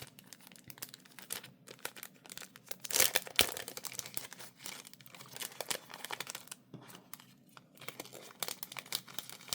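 Packaging being handled, crinkled and torn open, a run of short crackles with a louder burst of tearing about three seconds in.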